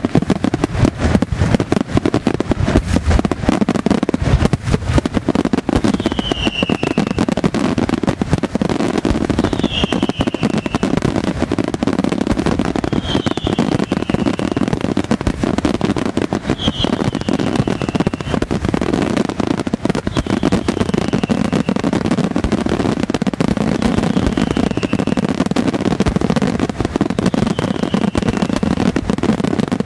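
Fireworks display at full intensity: aerial shells bursting in rapid, overlapping succession, a continuous barrage of bangs and crackle. A short high falling whistle recurs every three or four seconds.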